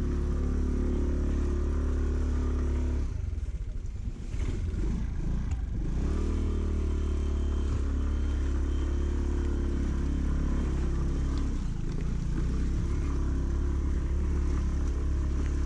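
Aprilia scooter engine running as it rides over a rough, muddy road. The throttle eases off about three seconds in, with some clattering over the ruts, then the engine picks up again with rising pitch around six seconds and runs on steadily, over a constant low rumble.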